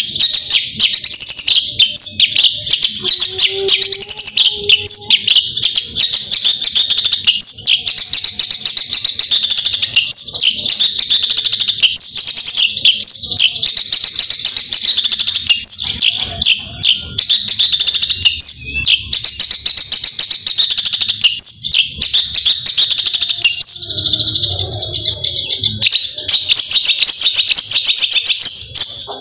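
Long-tailed shrike (cendet) singing loudly and without pause, a fast, dense run of high, sharp chirping notes: the rapid-fire 'tembakan' song of a bird in full voice.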